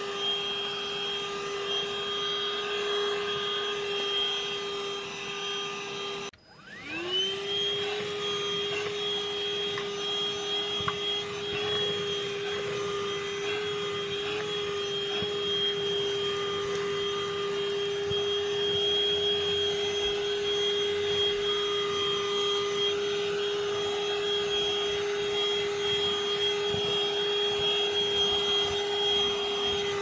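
Grundig VCH 9929 L cordless handheld vacuum running with a steady whine while picking up wood shavings from a fabric car seat. About six seconds in, the motor cuts out briefly and spins back up, its pitch rising to the running note.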